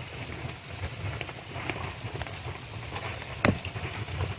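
Campfire of resinous fatwood crackling in steady rain, with scattered small pops and one sharp loud pop about three and a half seconds in.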